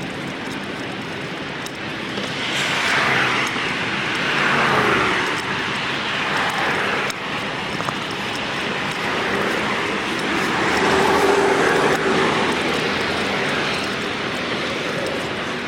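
Road traffic: several vehicles passing one after another, their tyre and engine noise swelling and fading in waves.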